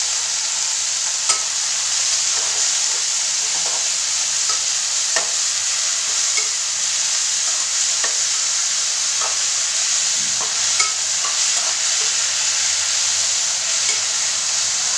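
Fiddlehead fern greens sizzling in hot oil in a metal pot, with a steady hiss, while a metal spatula stirs them, clinking and scraping against the pot now and then.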